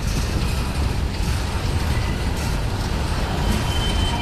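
Freight cars (covered hoppers, tank cars, open hoppers) rolling past on the rails: a steady low rumble of steel wheels on track, with a faint thin high tone near the end.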